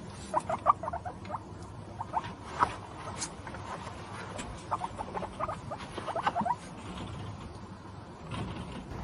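Guinea pig squeaking: several runs of short, quick, high squeaks over steady low background noise.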